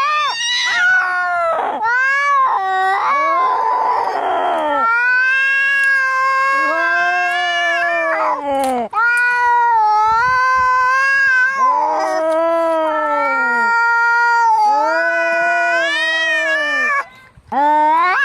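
Cats fighting: long, wavering yowls that rise and fall in pitch, with a hiss about four seconds in.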